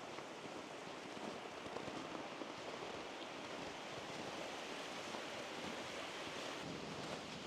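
Steady rushing of flowing water. Near the end the lower part of the rush drops away abruptly.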